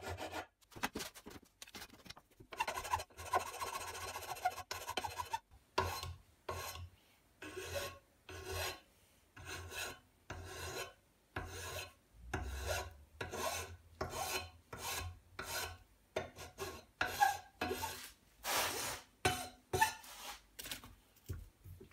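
Wood rasp filing the curved end of an aluminium bar held in a bench vise: rasping strokes back and forth, about two a second.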